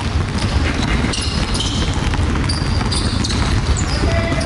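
Several basketballs dribbled at once in a gym, a dense overlapping patter of thuds, with short high squeaks of sneakers on the court.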